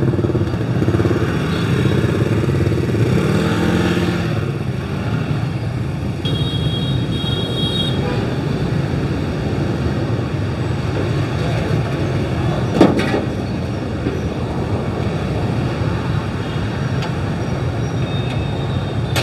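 Steady street traffic with motorbikes passing, with faint voices in the first few seconds, a short high-pitched tone about six seconds in, and one sharp knock near thirteen seconds.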